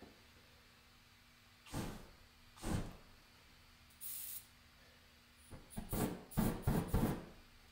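A can of butane spraying into an open flame: a short hiss about four seconds in, then a quick run of hissing spurts that light into a jet of flame near the end, the loudest part. Before it, two separate short spray bursts about two and three seconds in.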